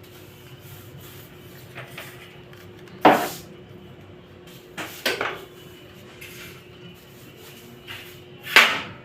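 A person sneezing three times, each a sudden loud burst, with the second coming as a double. The sneezes are brought on by dusting.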